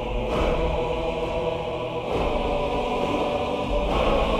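Loud recorded music with choir-like voices over a deep bass, held steady throughout.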